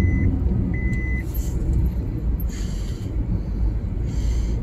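Car cabin noise while driving: a steady low rumble of engine and tyres on the road. A short high electronic beep repeats about once a second, sounds twice in the first second or so, then stops.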